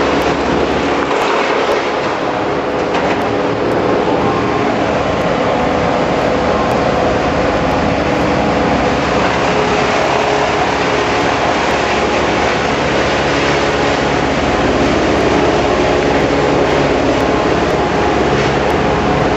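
Engines of heavy tree-removal machinery running steadily and loudly, with no let-up.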